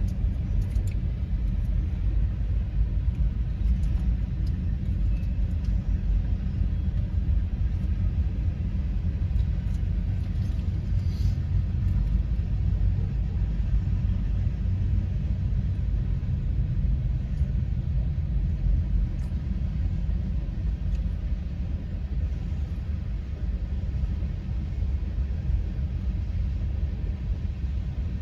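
Freight train cars rolling past a grade crossing, a steady low rumble heard from inside a car, easing slightly near the end.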